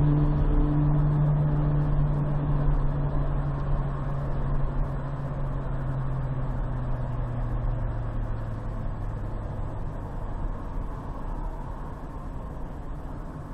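Steady tyre and road noise from a car driving on a highway interchange. A motorcycle alongside pulls ahead, and its steady engine note slowly fades over about ten seconds.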